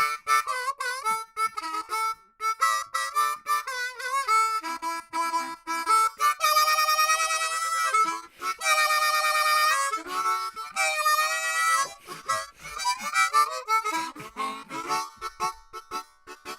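Background music: a harmonica playing a melody with quick note changes, some wavering bent notes, and several long held chords in the middle.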